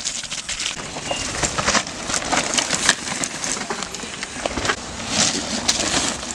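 Downhill mountain bike passing on a rough dirt track: irregular crunching of tyres and rattling of the bike over the ground.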